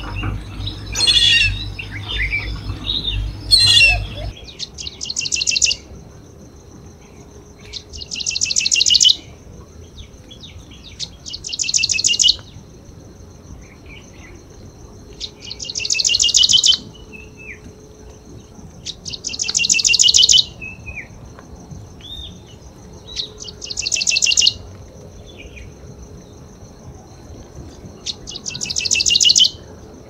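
A prinia singing: a rapid trill of evenly spaced high notes about a second long, repeated seven times at intervals of three to four seconds, over a steady high insect drone. In the first four seconds other bird calls and a low rumble are heard instead.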